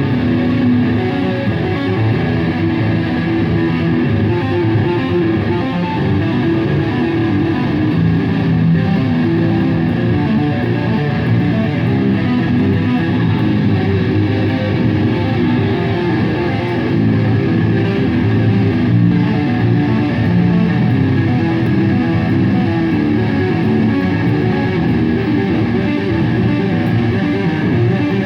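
A live band plays through an amplified setup during a sound check, electric guitar over bass guitar.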